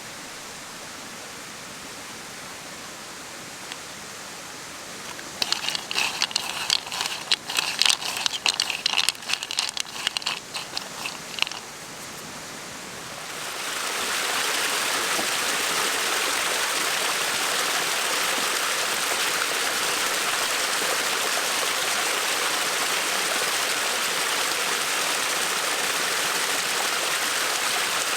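A few seconds of dense, sharp crackling, then a loud, steady sizzle that holds from about halfway on: sweet potato sticks frying in hot oil over the fire for imo-kenpi.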